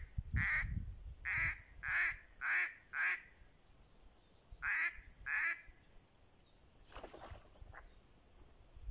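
Mallard hen quacking: a run of six harsh quacks, then two more after a short pause. Small birds chirp faintly in the background.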